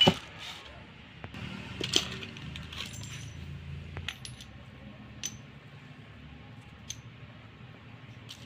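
Metal gearbox parts and tools clinking and knocking as they are handled. A sharp knock comes right at the start and another about two seconds in, then lighter clinks every second or two, some with a short metallic ring.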